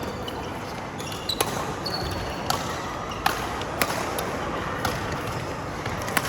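Badminton rally: rackets strike the shuttlecock about six times at irregular intervals of roughly a second, with short squeaks of shoes on the court floor near the start.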